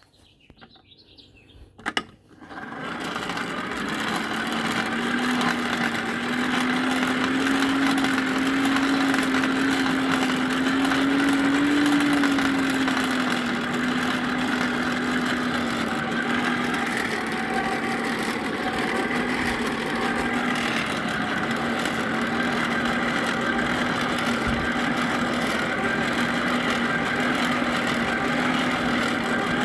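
Electric blower for a coal forge switched on with a click about two seconds in, spinning up over a couple of seconds to a steady hum and whine that wavers slightly in pitch.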